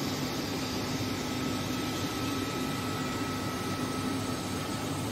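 Steady drone of thermal power plant machinery: an even rushing noise with a low hum and a faint high whine that stops near the end.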